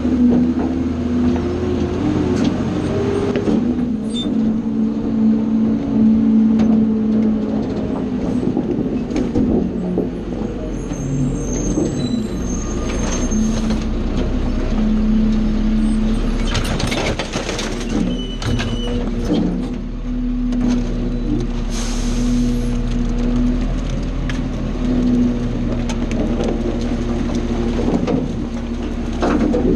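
Rear-loader garbage truck running its packer: the diesel engine and hydraulics run steadily while the blade sweeps and crushes trash in the hopper, with knocks and clatter of trash and metal, loudest about two-thirds of the way through.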